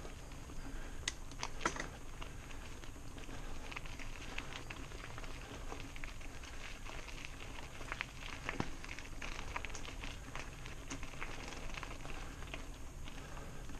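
Mountain bike tyres rolling over a loose gravel track, with scattered crunches, ticks and rattles over a steady low rumble.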